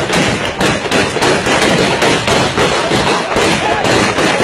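Gunfire: a rapid string of loud gunshots, about three a second and unevenly spaced.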